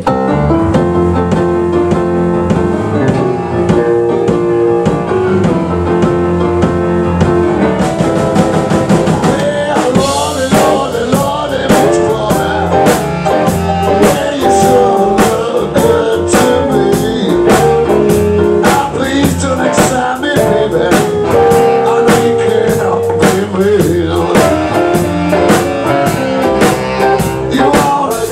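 Live band playing: saxophone, guitars, keyboard and drum kit. The drumming gets busier about ten seconds in.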